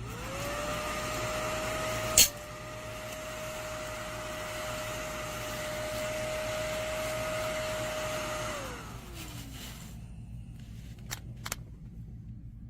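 Small motor of a mini desktop vacuum cleaner switched on, its whine rising quickly to a steady pitch, with one sharp click about two seconds in. After about eight and a half seconds it is switched off and the whine falls away as the motor spins down, followed by a few faint clicks.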